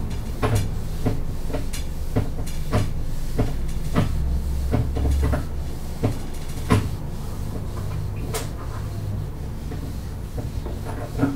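Dry-erase marker writing on a whiteboard: irregular sharp taps and short scrapes as the strokes are made, over a steady low hum.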